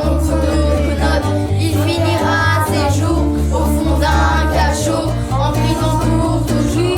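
A children's song: children singing in French over an accompaniment with guitar and a steady bass line.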